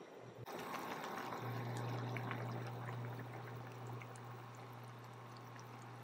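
Spicy chicken hotpot broth bubbling at a boil, with scattered small pops over a steady hiss. A steady low hum joins in a little over a second in.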